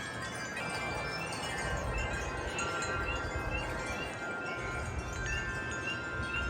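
Metal wind chimes ringing steadily in the wind, with a spring peeper giving short rising peeps, several in quick succession midway, over a low rush of wind.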